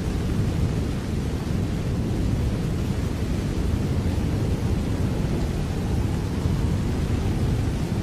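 Steady rain falling, a dense even wash of noise that is heaviest in the low, rumbling range and does not change.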